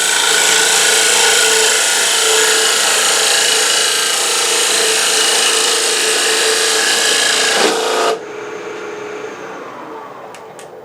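Thin parting tool cutting into a plywood-and-acrylic blank spinning on a wood lathe at about 1600 rpm: a loud, steady scraping with a hum through it. The cutting noise stops abruptly about eight seconds in, leaving a much fainter sound that fades, with a few light clicks near the end.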